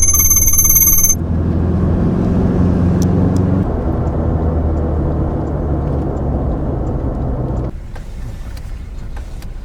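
A short bright electronic chime, then a steady low engine-like hum of a motor vehicle running, which cuts off abruptly about eight seconds in, leaving quieter ambience with light ticks.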